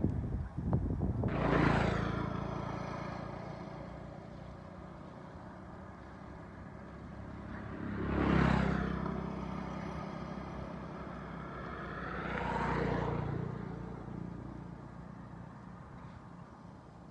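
Three motor vehicles pass by one after another, each engine rising and then fading away: the first about two seconds in, the second about eight seconds in, and a third, quieter one about thirteen seconds in.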